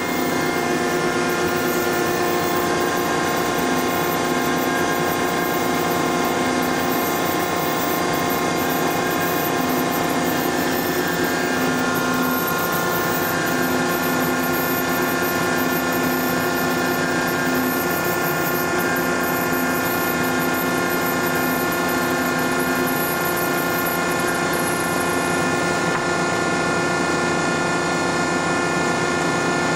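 Marvel No. 15A/S automatic horizontal band saw running and cutting through bar stock, a steady mechanical whine made of several held tones, with more tones joining about twelve seconds in.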